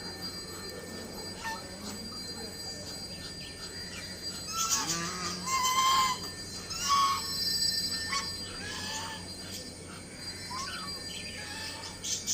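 Ducks calling: a run of short, pitched calls that come thickest and loudest in the middle, over a steady low background.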